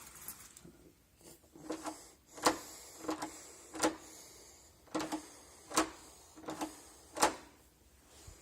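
Classroom-function door lock being worked: a string of sharp metal clicks and clacks, about one every half second to a second.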